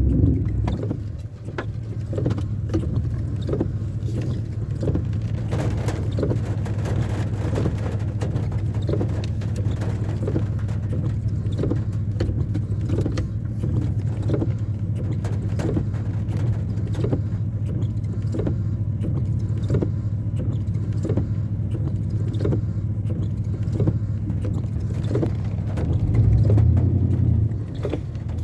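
An engine running steadily with a low hum, with a light regular tick about one and a half times a second. The hum swells briefly near the end.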